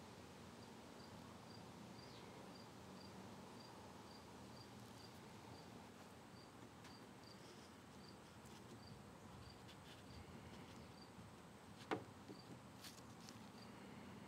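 Faint cricket chirping, short high chirps about three a second with a couple of brief pauses. A single sharp click sounds about twelve seconds in.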